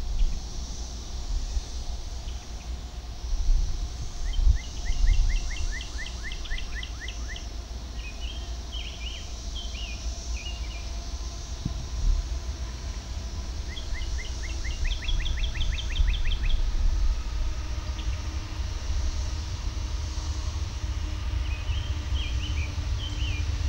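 Distant low rumble and faint hum of an approaching CSX freight train's GE diesel locomotive, with wind on the microphone gusting near the start. A songbird sings two fast runs of repeated chirps, about four seconds in and again around fourteen seconds, with scattered calls between.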